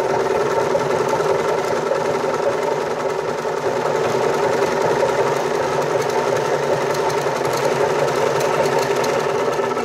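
Butterfly domestic sewing machine running steadily at speed with its bobbin winder engaged, filling a bobbin with thread.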